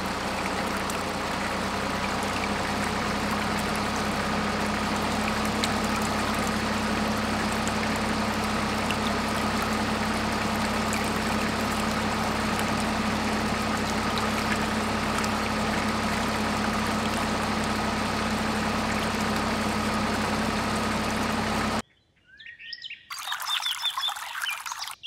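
Miniature water pump engine running at a steady speed with a constant hum, water pouring with it. It cuts off abruptly about 22 seconds in, and is followed by birds chirping over water trickling.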